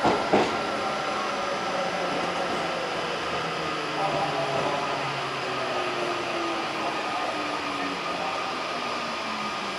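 Odakyu 60000-series MSE Romance Car heard from its vestibule deck, slowing for a station stop. Its electric motor tone falls steadily in pitch over the running noise, and two sharp knocks come right at the start.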